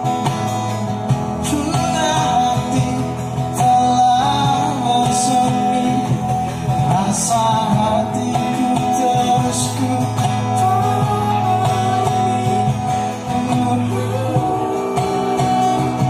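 A song played on acoustic guitar with a voice singing over it.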